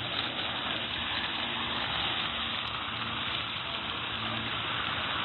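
Splash-pad fountain jets spraying and splashing onto wet pavement: a steady, even rush of water.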